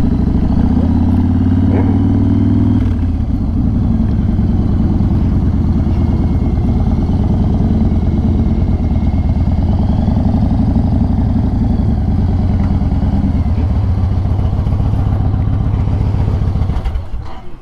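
Yamaha Raider cruiser's big air-cooled V-twin engine running steadily at low road speed, then shut off near the end.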